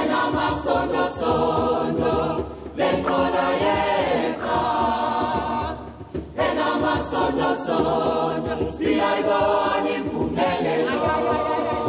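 A large choir singing together with a djembe drum played along. The singing comes in phrases of a few seconds with brief breaks between them.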